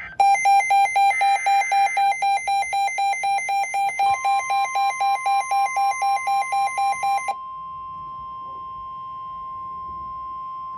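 A NOAA weather radio receiver's alarm beeping rapidly, about four beeps a second, as a new warning comes in. About four seconds in, the steady 1050 Hz NOAA Weather Radio warning alarm tone starts and carries on alone after the beeping stops near seven seconds in.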